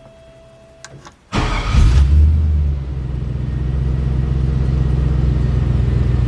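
The 1951 Mercury Monarch's engine starts about a second in after a couple of small clicks, catching at once. It revs briefly, then settles into a steady idle.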